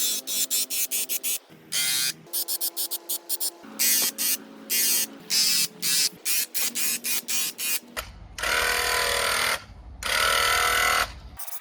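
Small power tool motor buzzing in many short, stop-start bursts, then in two longer runs of about a second and a half each near the end.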